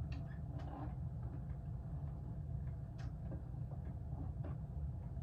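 Mid-1980s hugger ceiling fan, believed to be a Litex CloseUp, spinning with a steady low motor hum and a few faint clicks. The bearings are in good condition and it turns quietly.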